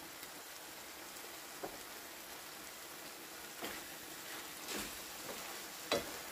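Chicken breast strips and onions sizzling steadily in a frying pan, with a wooden spatula scraping and knocking against the pan a few times in the second half.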